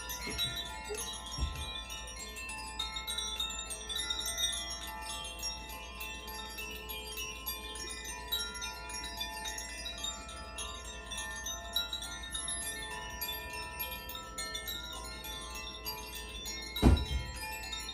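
Makino-style Advance Chimes ringing, with many overlapping bell-like tones at different pitches sustaining and layering over one another. A small knock comes early, and a loud sudden thump comes near the end.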